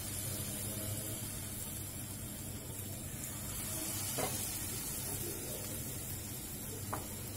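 Batter-coated mushroom pieces deep-frying in hot oil in a kadhai: a steady sizzle, with two faint clicks about four and seven seconds in.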